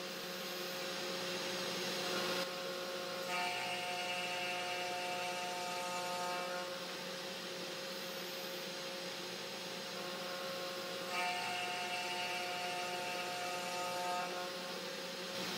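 A CNC 3018 Pro Max desktop router's spindle motor runs steadily while a 2.5 mm two-flute end mill cuts an acrylic rod in passes along the Y axis. A higher whine of several tones joins twice, for about three seconds each time.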